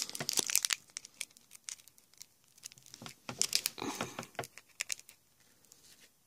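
Foil wrapper of a Magic: The Gathering Dark Ascension booster pack crinkling and tearing as it is peeled open by hand, in bursts of crackle that are loudest at the start and again about three to four seconds in.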